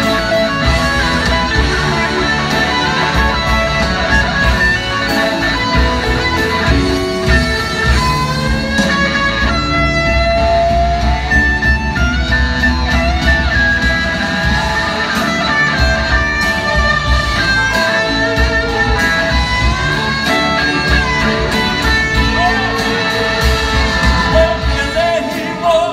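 Live rock band playing, with several electric guitars over a steady drum beat, heard from the audience.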